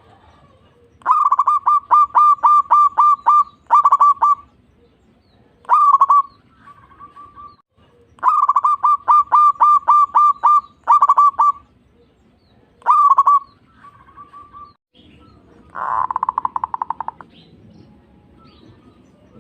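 Zebra dove (perkutut) singing: two runs of quick, clipped cooing notes, each about eight notes long, with single coos and softer notes between them. A short buzzing rattle of rapid pulses comes near the end.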